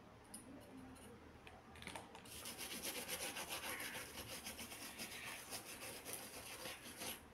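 Fast, scratchy rubbing as a small part of a Nokia 1600 mobile phone is scrubbed clean. It starts about two seconds in, after a few light clicks, and stops just before the end.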